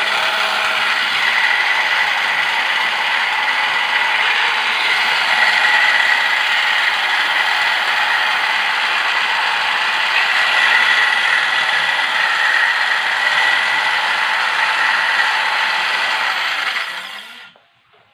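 Electric cloth-cutting machine running, its motor whirring with a steady high whine for many seconds, then switched off near the end.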